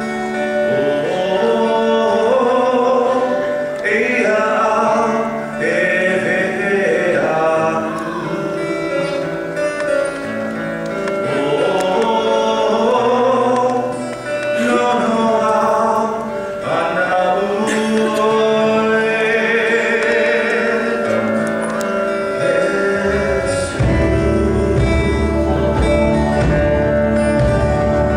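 A man singing a worship song into a microphone over instrumental accompaniment with guitar. About 24 seconds in, a deep bass comes in under the song and the music fills out.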